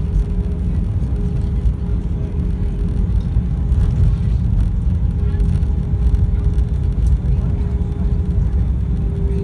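Jet airliner taxiing after landing, heard from inside the cabin beside the wing engine: a steady low rumble of engines and wheels with a steady tone riding over it.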